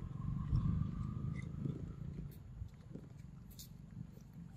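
A long-tailed macaque eating a ripe mango, with faint wet clicks from its mouth, over a low rumble that fades away in the first couple of seconds.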